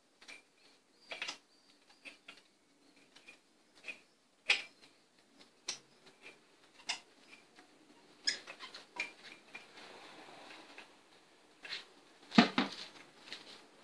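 Scattered light clicks and taps of gloved hands handling spark plug leads on a car engine, with a sharper click about twelve seconds in.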